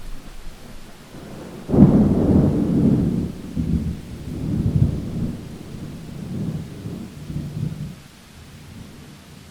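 A thunderclap in a rainstorm: a sudden loud crack under two seconds in, rolling on as a low rumble in waves for about six seconds and then dying away, over a steady hiss of rain.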